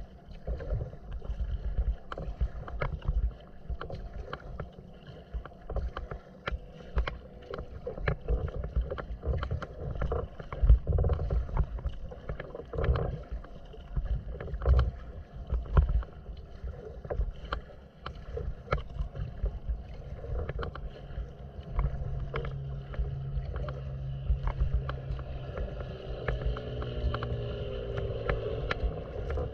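Water splashing and slapping against a kayak's hull as it is paddled through choppy open water, with irregular sharp splashes. A low steady hum joins in during the second half.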